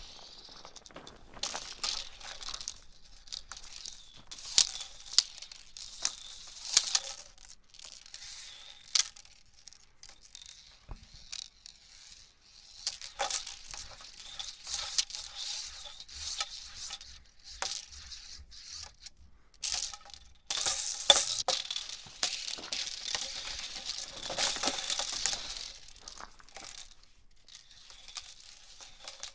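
Hula hoop being swung around, a rattling swish that comes in uneven bursts with many sharp clicks and short lulls between.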